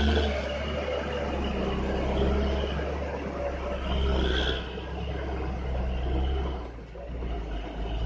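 Heavy diesel engine running steadily with a deep low rumble, easing briefly about seven seconds in.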